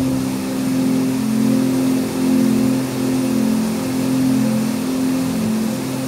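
Soft instrumental background music, held low notes shifting in pitch every half second or so, over the steady rush of a small waterfall cascading over rocks.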